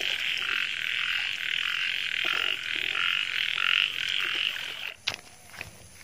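A dense chorus of frogs calling, a steady pulsing high-pitched trill that cuts off about five seconds in. Then come a few footsteps crunching through grass near the end.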